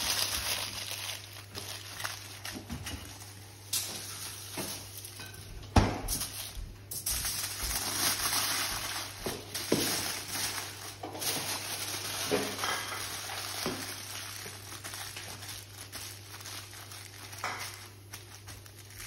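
Aluminium foil crinkling and crackling as it is folded and pressed around a whole fish to make a parcel, with a sharp knock on the bench about six seconds in.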